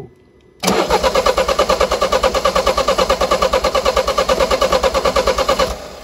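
Peugeot 5008 engine cranking on the starter for about five seconds without catching, an even rapid pulsing that starts about half a second in and stops abruptly. The engine control unit reports camshaft and crankshaft out of sync (code P0016), which the mechanic puts down to the timing chain.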